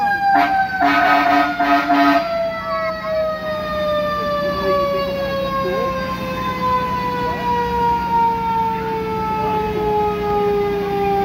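A fire truck's mechanical siren slowly winding down, its wail falling steadily in pitch throughout. Two horn blasts sound in the first couple of seconds, a short one and then a longer one.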